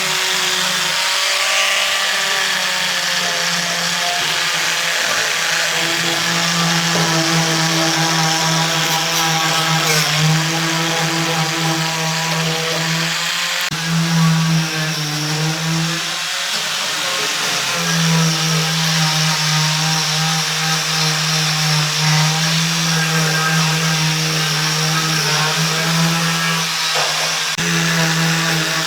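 Electric power tool motor running steadily under load, with a droning hum and a hiss. It briefly drops and comes back a few times.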